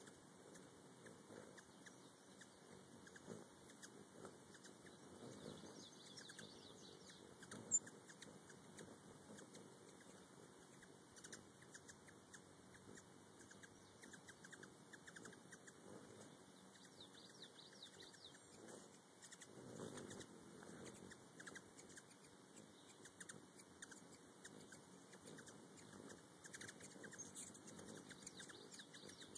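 Faint, high squeaky chirps of hummingbirds at a nectar feeder, with soft swells of wing hum as they hover close. One sharp tick stands out about eight seconds in.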